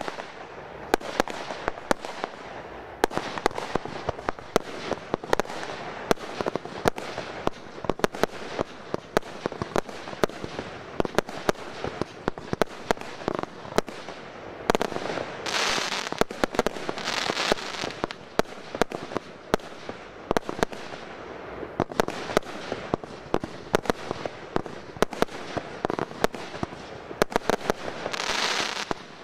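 Consumer-category (F2) firework batteries firing in quick succession: a continuous stream of sharp bangs from shots launching and bursting. There are two longer spells of dense hissing crackle, about halfway through and near the end.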